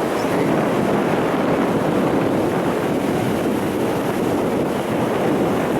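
Steady rushing of sea surf and wind, with wind blowing on the microphone; an even roar with no distinct tones or strokes.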